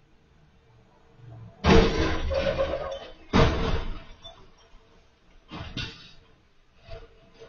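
Pickup truck crash: a sudden loud bang with a clattering tail about two seconds in, then a second bang a second and a half later as the truck loses a wheel. Two softer thuds follow as the detached wheel and tire lands and bounces on the lawn.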